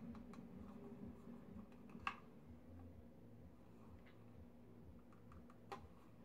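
Near silence with a few faint clicks from a Kydex wallet being handled, the clearest about two seconds in and again near the end, over a low steady room hum.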